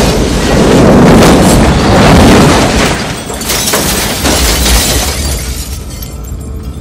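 Aftermath of a bus bomb blast: a low rumble with glass shattering and debris raining down onto cars, many sharp clinks and crashes, dying away over the last couple of seconds.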